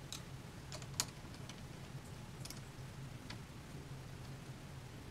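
Phillips screwdriver retightening the small screws of a height limit collar on a metal post: a few scattered light metallic clicks, the sharpest about a second in, over a faint steady low hum.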